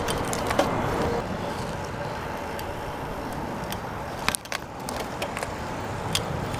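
Street noise heard from a moving bicycle: a steady rush of traffic and wind, with scattered light clicks and rattles.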